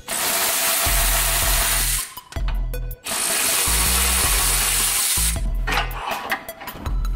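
Cordless electric ratchet spinning off the ball-joint nuts under the lower control arm, running in three bursts: two of about two seconds and a short one between them. Background music with a bass line plays underneath.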